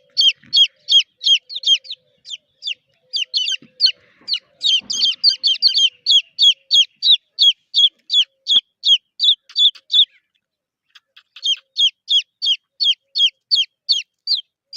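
Chicks peeping: a rapid string of high, downward-sliding peeps, about three a second, with overlapping calls from more than one chick a third of the way in and a pause of about a second two-thirds of the way through.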